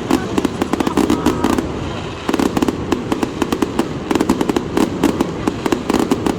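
Aerial fireworks display: a dense, rapid stream of bangs and crackles, easing briefly about two seconds in.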